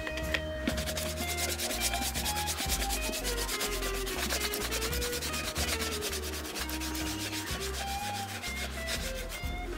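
A brush scrubbing leather boots in quick, repeated rubbing strokes, over soft background music.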